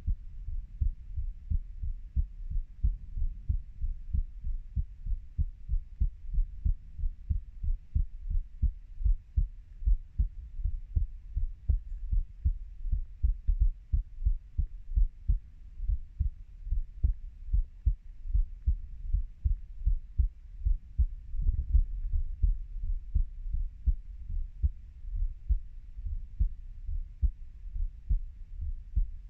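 A human heartbeat, recorded close up, beating in a steady, even rhythm of low thumps.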